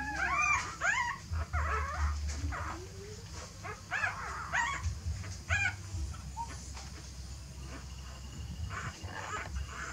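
Newborn puppies whimpering: a run of short, high squeals that rise and fall in pitch, thick in the first six seconds and sparser after.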